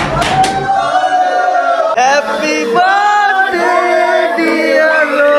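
Intro music with a male voice singing long, held notes.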